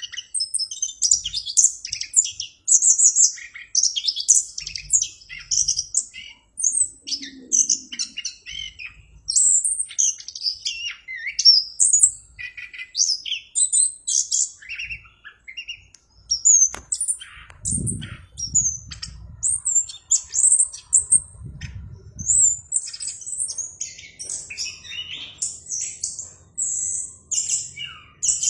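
Orange-headed thrush singing without a break: a fast, varied stream of high chirps, whistles and short trills.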